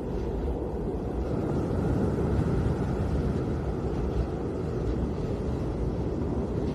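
Snowstorm wind blowing in a steady low rush, swelling slightly about two seconds in.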